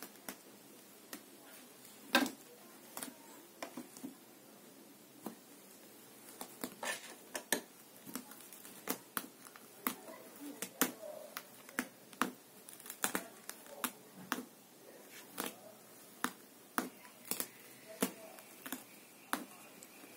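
A cat's claws snagging and pulling at the loops of a carpet, a string of sharp, irregular clicks, about one or two a second and coming faster in the second half.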